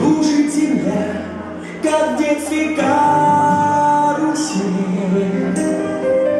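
Recorded song playing: a singing voice over sustained instrumental accompaniment.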